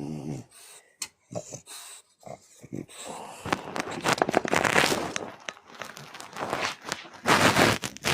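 French bulldog snuffling and breathing noisily close to the microphone, in bursts. The longest stretch is about three to five and a half seconds in, with another short burst near the end.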